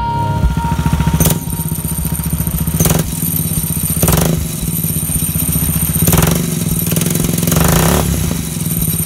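Converted lawnmower engine, a single-cylinder mounted vertically, running on the bench and revved in about five short bursts, turning the go-kart clutch's belt drive and the rear axle.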